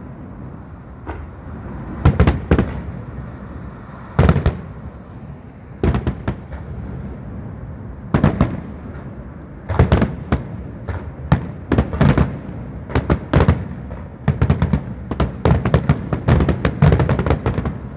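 Aerial firework shells bursting in a string of sharp, echoing bangs at irregular intervals, coming thick and fast in the last few seconds over a steady low rumble of city background noise.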